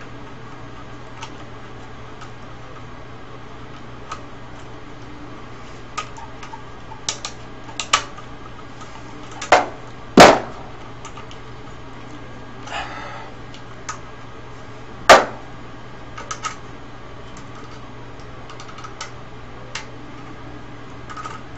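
Scattered clicks and knocks of hand tools and metal and plastic parts being handled while a CRT television is dismantled, with a few sharper knocks around the middle and a short scrape between them, over a faint steady hum.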